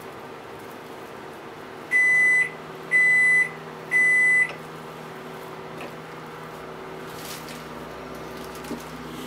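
Three electronic beeps from a kitchen appliance, each about half a second long and one a second apart, over a low steady hum.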